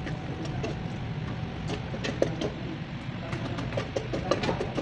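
Metal spoon stirring food in a stainless steel pot, scraping and clicking against the pot's sides and bottom many times at an uneven pace, over a steady low rumble.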